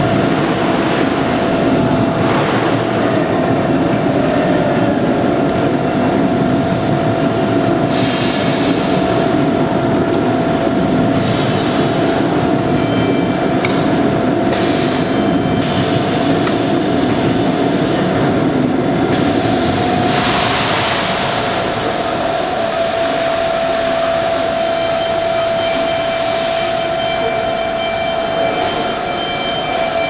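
Automatic stretch-film pallet wrapper with top-sheet dispenser running: a steady motor whine over a dense mechanical hum, broken by several short hissing bursts partway through, the longest lasting about two seconds.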